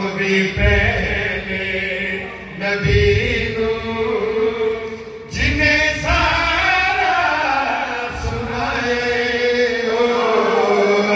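A man chanting a qasida, an Urdu devotional praise poem, in long melodic lines with drawn-out held notes.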